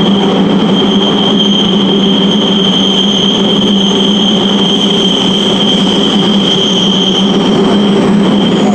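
JR East E231 series 800 commuter train running through a subway tunnel, heard inside the car: a steady rumble and hum with a high, steady squeal that holds for several seconds and stops shortly before the end.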